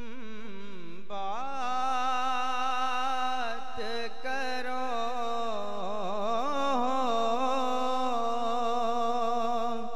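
A man singing a naat into a microphone: one long drawn-out sung phrase whose pitch wavers up and down, breaking off near the end.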